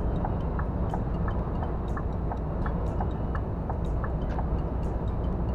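Cab interior noise of a Scania R440 truck cruising: the straight-six diesel and road noise make a steady low rumble. A light, regular ticking comes through about three times a second.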